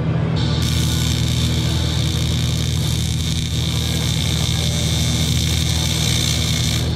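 AC TIG welding arc on cast aluminium: a steady high hiss and buzz that starts about half a second in, over a steady low hum.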